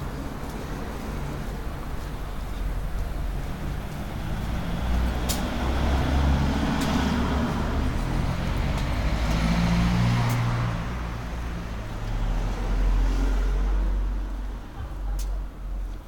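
Street traffic noise, with a motor vehicle passing that swells over several seconds and fades away over a steady low rumble. Two sharp clicks, about five seconds in and near the end.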